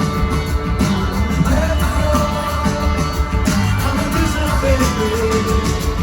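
Live rock band playing a bass-heavy groove with steady drum hits.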